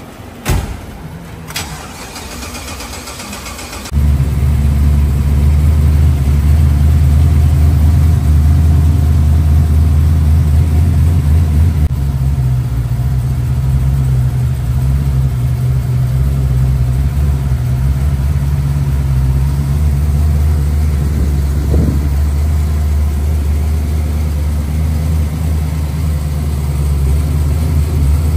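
Twin-turbo LS V8 in a 1973 Chevrolet Caprice convertible being started: two clicks, then the starter cranks for about two seconds before the engine catches with a loud low rumble. It then idles steadily, the idle easing down slightly about twelve seconds in.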